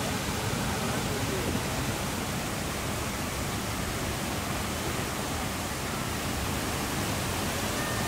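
Waterfall and whitewater: a steady, even rush of water pouring over rock.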